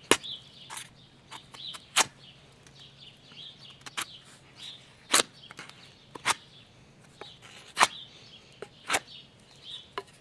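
Large chopper-style survival knife whittling a thin wooden stick: a series of short, sharp slicing strokes, about seven or eight of them, roughly one every second or so.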